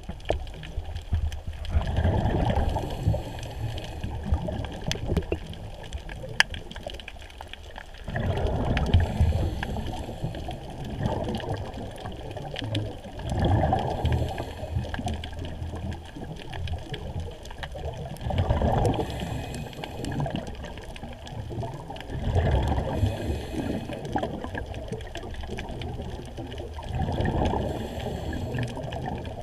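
Underwater bubbling and water movement heard below the surface, swelling into gurgling bursts about every four to five seconds.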